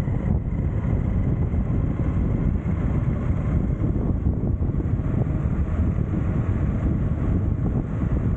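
Wind buffeting the microphone over the steady low rumble of an electric skateboard's wheels rolling on an asphalt path.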